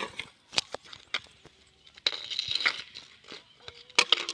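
Street hockey sticks clacking on a ball and the asphalt: a few sharp knocks, a scraping rush about two seconds in, then two more quick knocks near the end.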